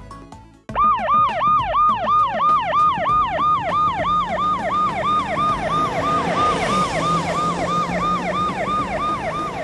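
Electronic yelp siren: a fast rising-and-falling wail repeating about three times a second, starting abruptly about a second in, as from the light-bar siren of a toy utility truck.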